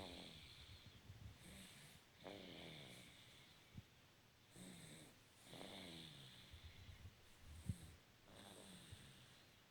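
Faint, slow snoring: a pitched snore roughly every three seconds, with softer breath sounds between. There is a sharp click about three quarters of the way through.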